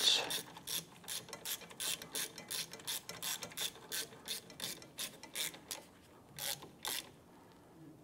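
Hand ratchet clicking in quick runs as it snugs down the rear brake caliper bolts; the clicking stops about a second before the end.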